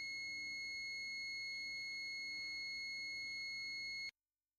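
ZOYI ZT-300AB digital multimeter's continuity buzzer sounding: one steady, high-pitched beep held unbroken, which signals a closed circuit between the probes. It cuts off suddenly about four seconds in.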